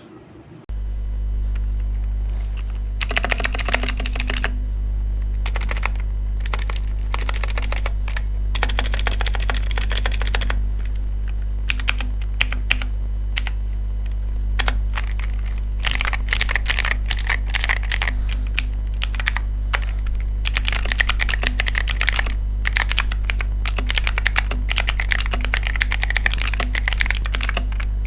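Fast typing on an Aula F3018 mechanical keyboard with blue switches: rapid runs of key clicks in bursts separated by short pauses, over a steady low hum.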